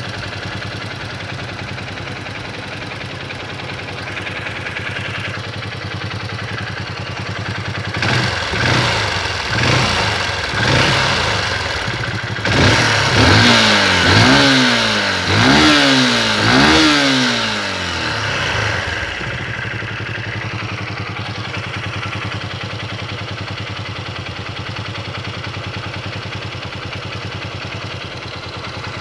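Honda XR150L's single-cylinder four-stroke engine idling steadily, then revved in a run of short throttle blips, each rising and falling back, for about ten seconds before settling back to idle. The owner puts it forward as having a noise in the engine.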